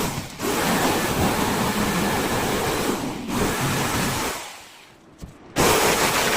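Electric power tool running with a loud, dense hiss, switched off about four seconds in and winding down over about a second, then started again abruptly near the end.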